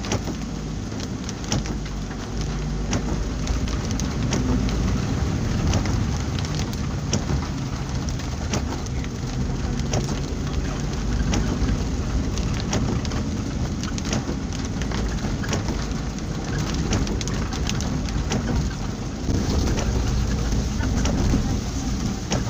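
Heavy rain striking the roof and windshield of a moving vehicle, heard from inside the cabin as many separate sharp drop hits over a steady low rumble of engine and tyres on the wet road.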